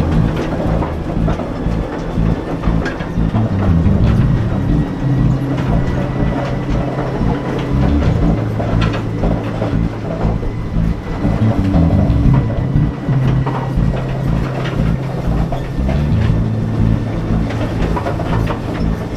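Small mine tour train running through an underground tunnel: a steady low motor drone, with now and then the wheels clicking over the rails.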